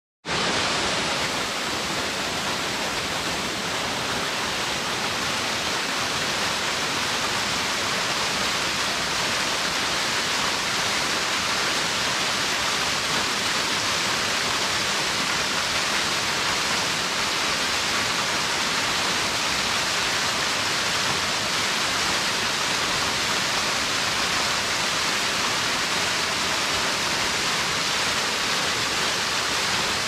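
Small waterfall pouring steadily down a mossy rock face and splashing at its base: a constant, bright hiss of falling water.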